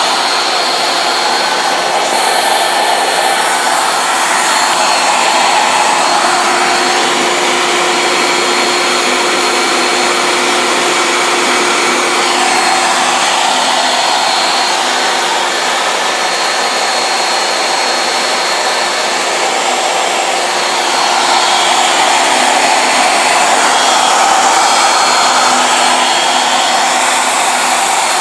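CNC router spindle running at high speed, milling a carbon fiber sheet, with a vacuum pulling dust through the hose at the cutter. A steady, loud whine and hiss, its pitch shifting slightly now and then.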